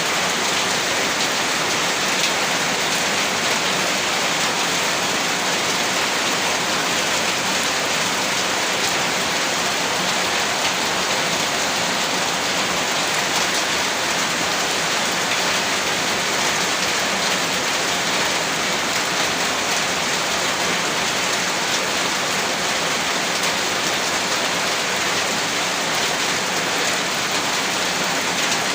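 Heavy rain falling steadily, an even, unbroken hiss of rainfall.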